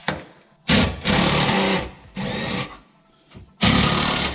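Cordless drill-driver running in three short bursts, the middle one shorter and quieter, backing out the bolts that hold a block-off trim plate on a steel front bumper.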